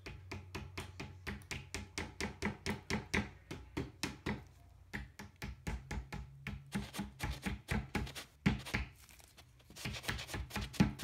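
Mallet tapping wooden dowels into the edge holes of an IKEA Kallax shelf panel: a fast run of light knocks, about four or five a second. The run pauses briefly about halfway and again near the end.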